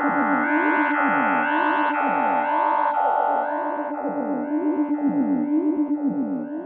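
Electronic synthesizer music: a held drone under quick, repeating falling pitch sweeps, with higher tones stepping up and down in pitch.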